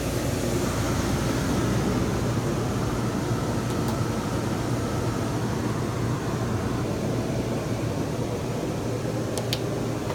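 A travel trailer's 15,000 BTU rooftop air conditioner running steadily on power from a 3400 W inverter generator: an even blower and compressor hum, showing no sign of overload. A couple of faint ticks come through, one about four seconds in and one near the end.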